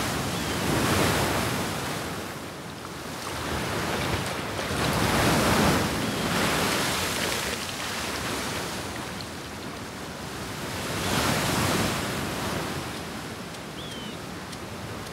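Sea surf: waves breaking and washing up the beach, the rushing swelling and fading every few seconds.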